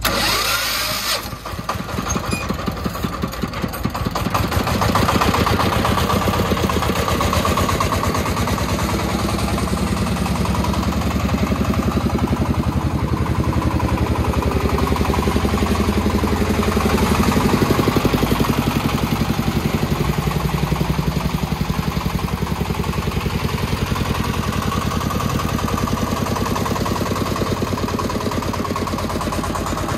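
Homemade three-wheeled dump truck's single-cylinder diesel engine chugging steadily, picking up about four seconds in as it pulls a load of soil through loose sand.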